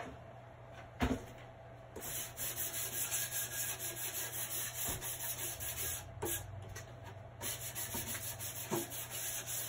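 A small sanding disc rubbed by hand over painted wood in quick, even strokes, lightly sanding down grain that the paint has raised. A single knock comes about a second in. The sanding starts about two seconds in and breaks off briefly around the six-second mark.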